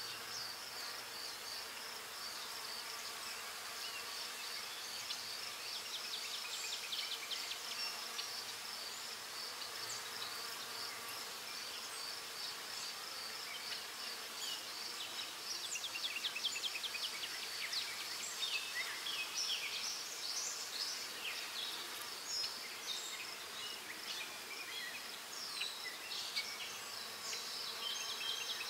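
Graphite pencil scratching on paper in runs of quick short strokes as an eye is shaded and its lashes drawn, over a steady high-pitched pulsing buzz.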